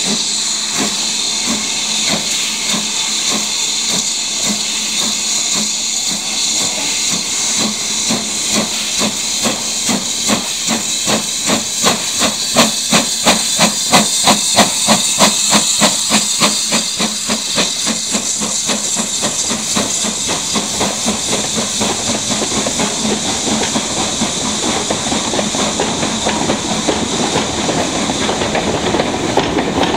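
BR Standard Class 9F 2-10-0 steam locomotive 92212 pulling away, its exhaust chuffing over a steady steam hiss, the beats quickening and loudest as the engine passes about halfway through. The carriages then roll past with an even rumble of wheels on the rails.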